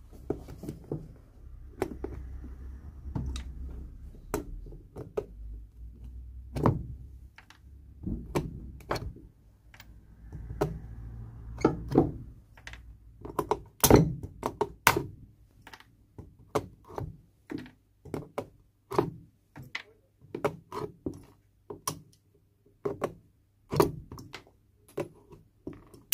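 Steel end-cutting pincers gripping and levering old nails out of a leather shoe's heel seat: a long run of sharp, irregular clicks and knocks, the loudest about halfway through.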